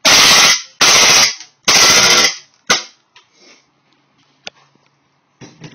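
WE Glock 18C gas blowback airsoft pistol firing on full auto: three rapid bursts of about half a second each, then a single shot, followed by faint handling clicks.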